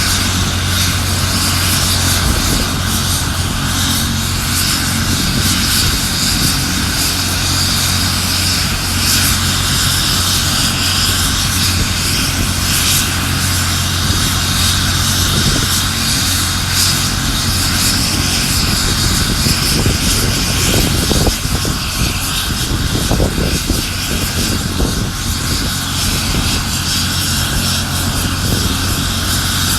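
Air ambulance helicopter with its turbine engine and rotor running steadily: a constant low drone under a thin high whine.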